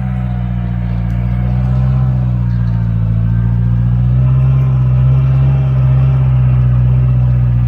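Off-road vehicle engine running close by, loud and steady, with its revs and loudness creeping up over the first half.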